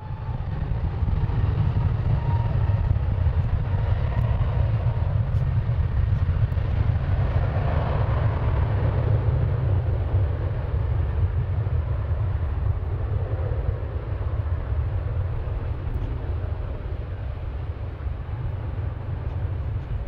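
Jet airliner engines rumbling loudly and steadily, swelling about eight seconds in as the aircraft passes.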